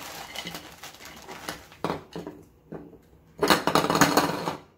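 A plastic parts bag rustling and crinkling as black stand-leg tubes are pulled out and knocked down onto a wooden table, with a sharp knock about two seconds in and the loudest stretch of rustling from about three and a half seconds in.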